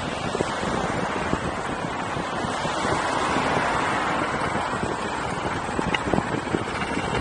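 Steady wind rush on the microphone mixed with rolling road noise and low, irregular thumps, as heard while riding an electric unicycle.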